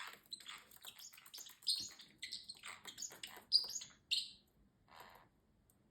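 Pet parrotlet chirping and chattering, a rapid string of short high chirps, with a short breathy sound about five seconds in.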